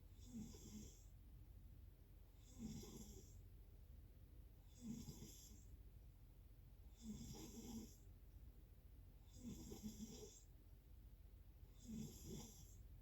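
A sleeping person snoring faintly and regularly: six short snores, one about every two and a half seconds.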